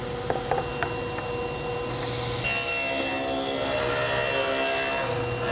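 Table saw running, with a few knocks in the first second as a board is set down on the table. About two and a half seconds in, the blade starts ripping the pine board along the fence, and the cutting noise continues to the end.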